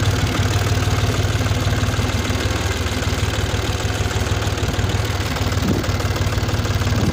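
Small farm tractor's engine running steadily at a low, even idle-like speed, a constant deep drone with a fast pulse.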